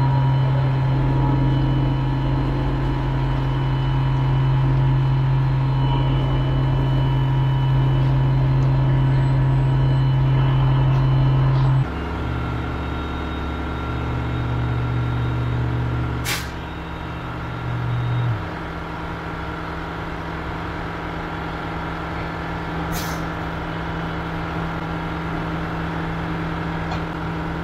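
DEWALT Powershift battery power screed vibrating with a steady hum as it levels wet concrete, over the running engine of a concrete pump truck. The hum changes abruptly about 12 seconds in and falls away briefly a few seconds later; two sharp clicks stand out.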